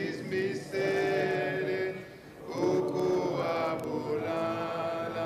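A group of voices singing a slow, chant-like song, with long held notes and a brief break for breath about two seconds in.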